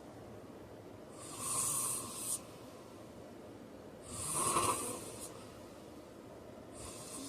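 A man snoring in his sleep, with slow rasping breaths about every three seconds: one about a second in, a louder one around four seconds, and another starting near the end.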